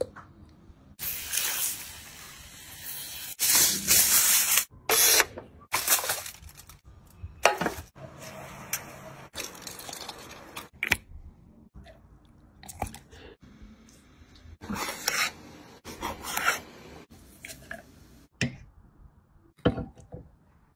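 Shellfish and their juices sizzling on a hot charcoal grill, loud hissing spurts a second or less long, over a dozen of them, with quieter sizzling between; the sound breaks off sharply several times.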